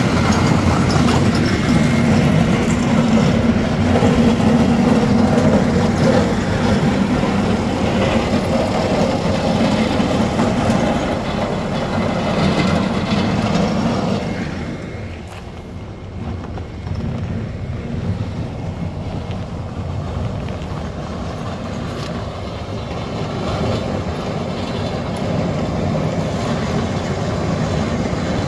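Caterpillar 140M AWD motor grader's blade scraping ice off the road surface, with its diesel engine running: a loud, dense scraping. About halfway through it quietens, leaving the steadier engine noise of the grader and a following tractor with a plough blade.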